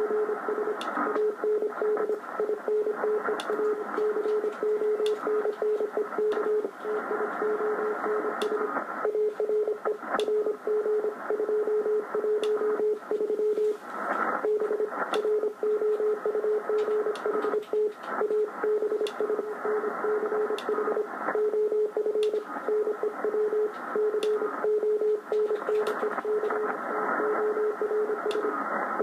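Morse code (CW) signal on the 40 m amateur band, received on an Icom IC-735 HF transceiver: a low keyed beep sending a steady run of dots and dashes. Under it is band-limited receiver hiss with occasional static clicks.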